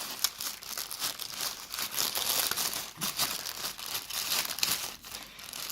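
Plastic packet of dried moss being opened by hand: a continuous dry crinkling and rustling of the packaging, with some tearing.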